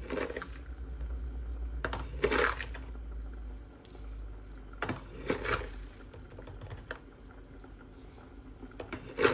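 A metal spoon clinking against a steel pot as brown sugar is spooned and poured onto dry rice grains, heard as a few short bursts of clinking and granular rustling. The loudest burst comes near the end.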